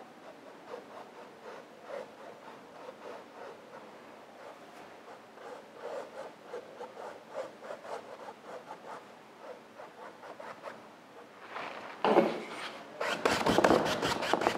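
Paintbrush strokes on a stretched canvas: a fine brush making a quiet run of short strokes laying acrylic highlights, then near the end a wide flat brush scrubbing quickly back and forth across the canvas, much louder.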